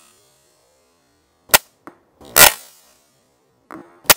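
Bat Reverse pistol crossbow shots, with bolts striking a block target: a few short, sharp snaps about a second apart. The loudest comes about halfway through.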